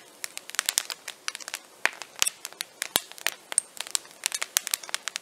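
Wood campfire crackling: irregular sharp snaps and pops, several a second.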